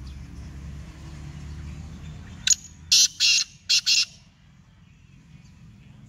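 Black francolin calling: one harsh phrase of five short notes, starting about two and a half seconds in and lasting about a second and a half. The notes after the first come close together.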